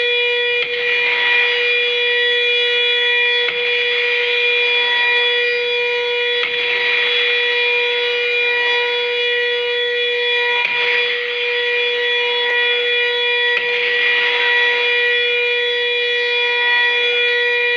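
A siren held at one steady pitch, sounding the moment of the proclamation. Ceremonial field guns fire a salute over it about every three seconds, each shot a short blast with a smear of echo that is no louder than the siren.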